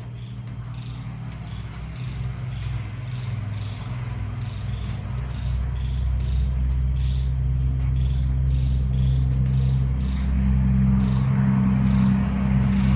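A deep, steady rumble that grows gradually louder, with a faint chirping of insects repeating about twice a second behind it.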